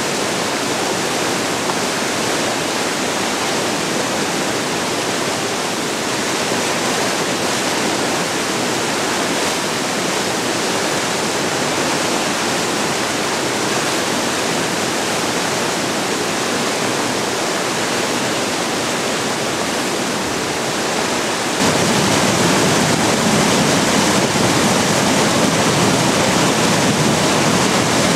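River water rushing steadily; near the end it turns suddenly louder and fuller.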